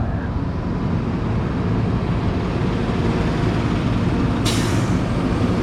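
Tow truck's engine idling steadily, with a short hiss about four and a half seconds in.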